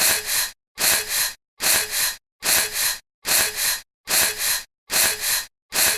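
A person's breathy, unvoiced double huff of breath, repeated evenly about seven times, roughly once every 0.8 seconds: a looped voice sound effect.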